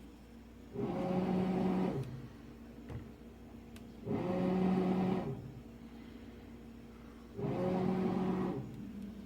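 Frigidaire refrigerator making a repeating buzzing hum three times, each about a second long and about three seconds apart, over a steady low running hum.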